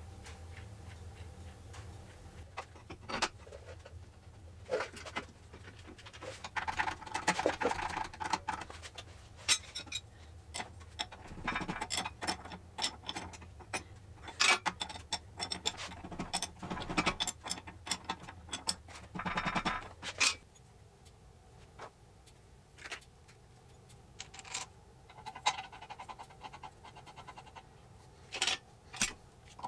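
Steel hydraulic fittings being handled, screwed into a hydraulic valve block and tightened with a wrench: scattered metal clicks, taps and scrapes, with several clusters of rapid clicking.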